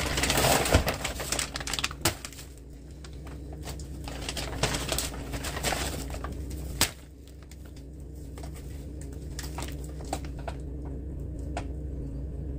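Groceries being unpacked and handled: rustling and scattered clicks, densest in the first two seconds, with a single sharp knock about seven seconds in, over a steady low hum.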